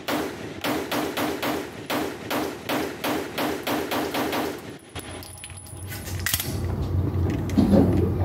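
Rapid string of about fifteen 9mm pistol shots, roughly three a second, from a Beretta 92X with a four-port compensator, echoing in an indoor range. The firing stops about five seconds in, leaving a low steady hum.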